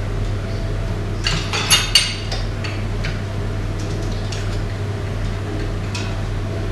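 Steel parts of a Bosch H-series inline diesel injection pump clinking against each other and the housing as it is handled during reassembly: a quick cluster of metallic clinks a second or two in, then a few lighter ticks. A steady low electrical hum runs underneath.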